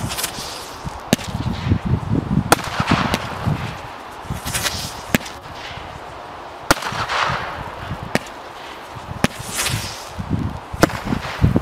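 Zeus Fireworks 'Mini Gods – Zeus' seven-shot consumer firework cake firing. About seven sharp bangs come at irregular intervals of one to two seconds, each followed by a short hiss and crackle from the gold glitter and spinner effects.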